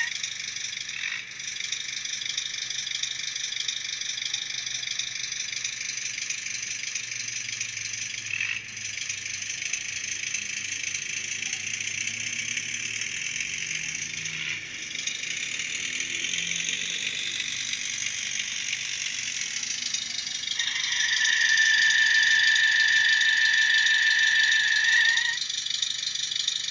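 Model-train sound decoder (ESU LokSound Micro V4.0) playing the diesel engine sound of a Bemo HOm RhB Tm 2/2 service tractor through the model's tiny speaker, a thin hissy engine running as the model drives. About twenty seconds in, a loud steady horn note is held for around five seconds.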